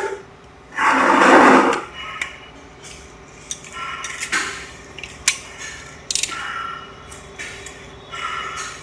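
Metal hand tools scraping and clicking against a car gearbox while the loose bolt holding the reverse-gear shifter is tightened. A loud scrape comes about a second in, followed by scattered clicks and short metallic rattles.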